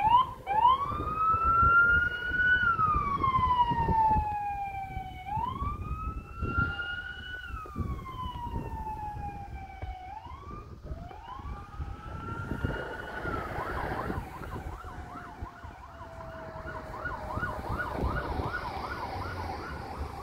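Fire apparatus siren: a few quick chirps, then a slow wail rising and falling about every two and a half seconds. About two-thirds of the way through it switches to a faster yelp, growing fainter as the vehicles pull away.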